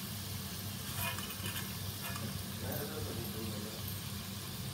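Yam pieces deep-frying in hot oil in a kadai, a steady sizzle, with light scrapes and taps of a steel slotted skimmer stirring them and lifting them out.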